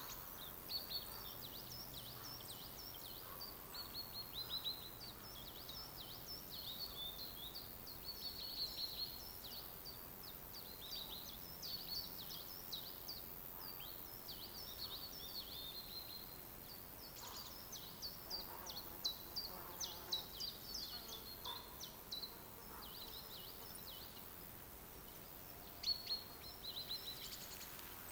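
Forest birdsong: small birds chirping in quick, high runs of short notes, over a faint steady hiss. The singing thins out for a couple of seconds near the end before another burst.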